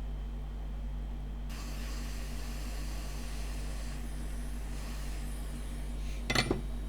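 Steady low electrical hum, with a soft hiss coming in about a second and a half in and a couple of short clicks near the end.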